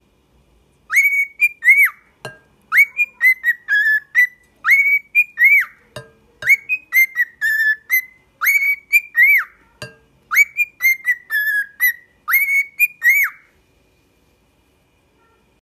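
Cockatiel whistling a tune by itself: repeated phrases of clear whistled notes, some arching up and down in pitch, stopping about two seconds before the end. Three sharp taps sound between the phrases.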